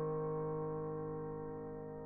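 Piano music: a held chord slowly dying away, with no new notes struck.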